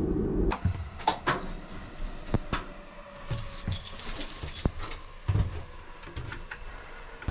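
Sharp clicks and knocks as switches and fittings are worked by hand in an electric train's driver's cab while it is powered up, with a brief metallic jingle near the middle. It opens with a steady hum and high whine from a train car's onboard equipment, which cuts off about half a second in.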